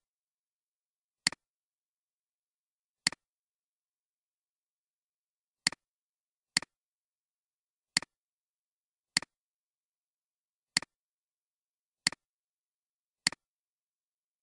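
Computer mouse clicks: about nine single sharp clicks at uneven intervals of one to two and a half seconds.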